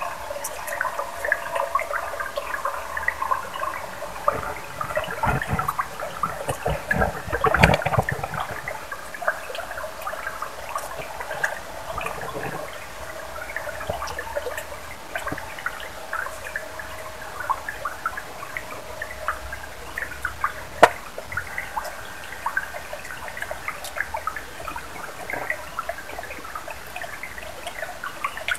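Shallow stream water trickling and babbling over stones, with a couple of sharper knocks or splashes.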